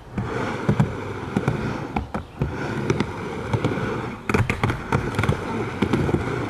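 Skateboard rolling on a mini ramp, wheels rumbling steadily, with sharp clacks as the trucks and board hit and grind the metal coping, several times through the run.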